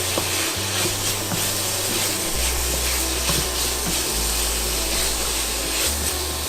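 Chicken strips and spices frying in a pan, a steady sizzling hiss, with background music and its bass line playing over it.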